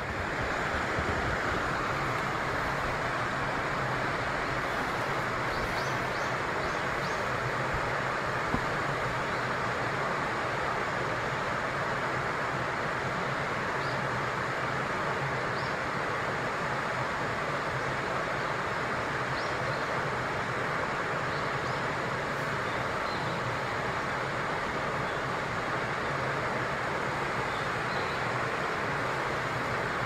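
Steady rushing of flowing stream water, with a few faint, short high-pitched sounds scattered through it.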